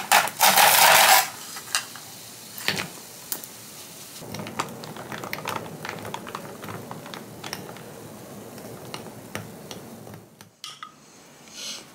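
Kitchen tableware being handled: a loud rushing noise for about the first second, then scattered light clinks and knocks of cutlery against dishes.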